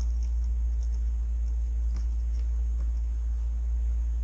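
Low, steady rumble of a 2016 Subaru WRX's turbocharged four-cylinder idling, heard from inside the cabin, with a few faint clicks.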